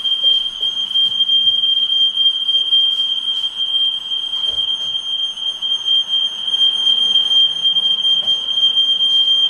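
Smoke alarm sounding one unbroken, loud, high-pitched tone, set off by thick smoke from grilling indoors.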